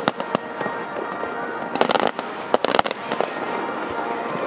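Aerial fireworks shells bursting: a series of sharp bangs, thickest about two to three seconds in, over a steady background of distant reports.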